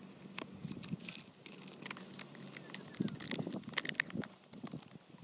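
Thin plastic water bottles crinkling and clicking as they are handled, with scattered crackles and rustles that get busier about three seconds in.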